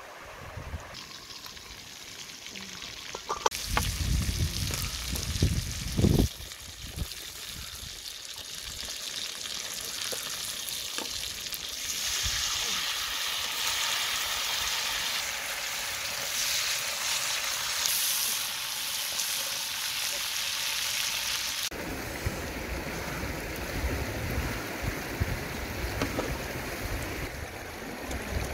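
Duck and banana flower frying in a wok over a wood fire and being stirred, a steady sizzle that is loudest for about ten seconds in the middle. Wind gusts on the microphone with a few knocks come before it, and a flowing river follows near the end.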